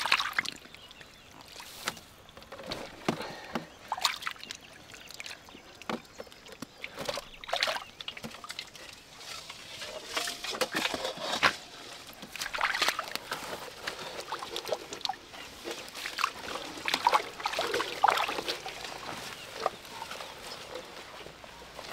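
Irregular splashing and sloshing in shallow muddy water, in short bursts, as hands grab catfish and bare feet wade through the pit.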